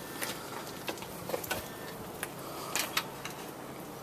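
A few faint, scattered clicks and light knocks from the oxyacetylene set and its gear being handled, over a low steady hiss.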